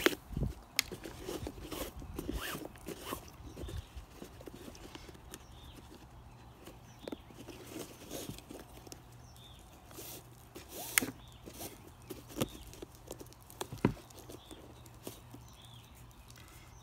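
A bootlace being threaded and pulled through the eyelets of a Keen Targhee III hiking boot: soft rubbing and rustling with scattered light clicks and taps as the lace and boot are handled on a plastic workbench, the sharpest click about eleven seconds in.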